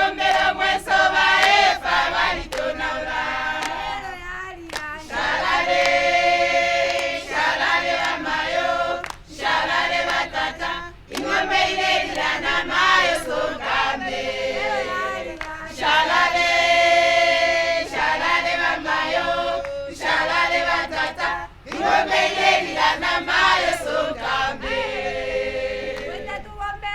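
A group of voices singing together like a choir, in long held phrases that stop briefly every few seconds.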